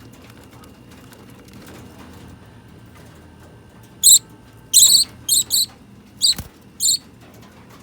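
Budgerigars calling: faint chatter, then from about four seconds in a run of loud, short, sharp high-pitched chirps in quick succession.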